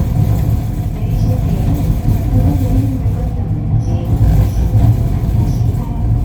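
Ui-Sinseol light-rail train running between stations, heard from inside the car: a steady low rumble.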